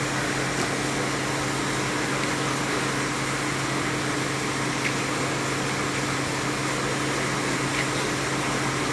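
Steady room background noise: a constant low hum with hiss, like a running fan, with two faint ticks in the middle and near the end.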